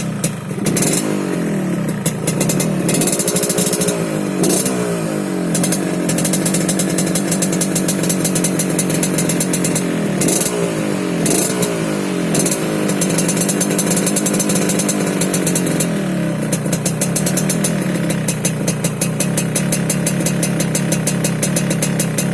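Yamaha RX-King's single-cylinder two-stroke engine blipped up and down several times, then settling to a steady idle for the last few seconds. It has a crisp, snoring exhaust note ('garing/ngorok').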